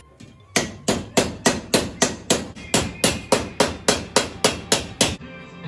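A hand hammer striking a thin metal strip clamped in a bench vise, bending it into shape: a steady run of about seventeen sharp, ringing metal blows at roughly three and a half a second, starting about half a second in and stopping shortly before the end.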